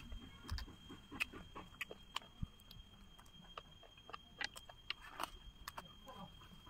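Close-miked eating sounds: irregular crisp crackles and small mouth clicks of chewing fried chicken, several a second.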